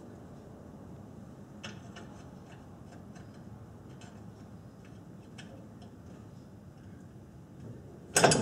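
Faint, scattered metal ticks and clicks as a brake rotor and caliper assembly is handled into place on a truck's front suspension, then a loud metallic clank near the end.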